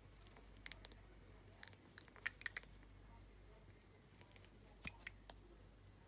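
Green-cheeked conure making quiet beak clicks and nibbling sounds, in three short clusters of sharp little ticks.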